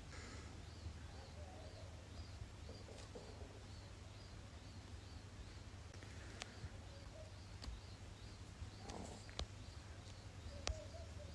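Faint stomach gurgling: a few soft, wavering rumbles. Behind them a faint high chirp repeats about twice a second, and there are a few small clicks.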